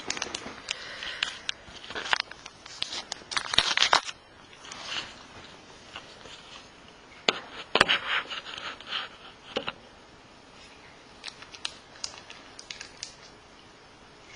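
Handling noise from a handheld camera: rubbing, scraping and clicks as it is moved about and set down on a glass tabletop. The loudest cluster of clicks and scrapes comes about halfway through, and after that only a few faint ticks are left.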